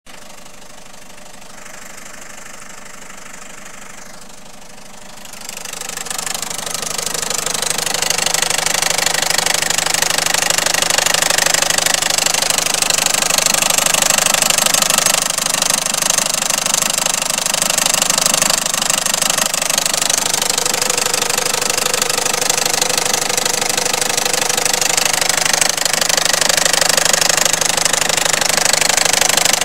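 Peugeot 307's 1.6 HDi four-cylinder turbodiesel running with a strange noise. The sound grows much louder from about five seconds in and then holds steady.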